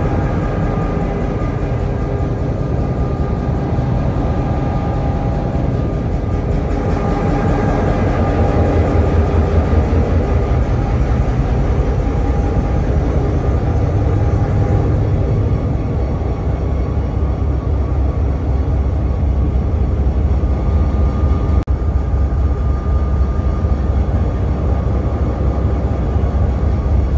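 Diesel-electric freight locomotive engines running steadily, heard up close from the locomotive's outside walkway, with a deep rumble and a few steady tones above it.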